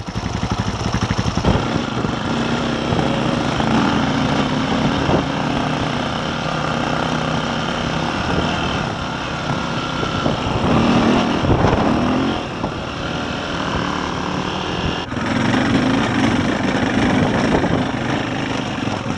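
KTM enduro bike's single-cylinder four-stroke engine ticking over with an even beat for about a second and a half, then pulling away and running steadily on the move, with wind noise on the microphone.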